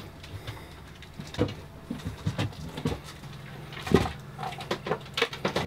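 Lithium battery blocks being set down and shifted by hand in a wooden battery locker: a scattered series of knocks and scrapes, the loudest about four seconds in.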